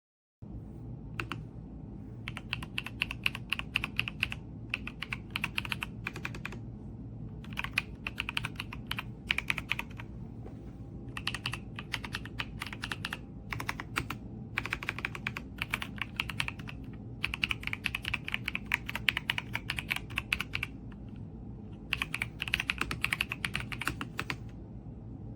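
Typing on a mechanical keyboard: fast runs of key clicks lasting a second or two, broken by short pauses, over a steady low hum.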